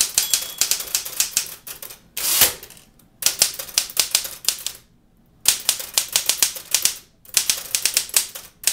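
Manual typewriter typed on quickly: fast runs of sharp key strikes, broken by short pauses, with one longer rasp about two and a half seconds in. This machine's H key sticks.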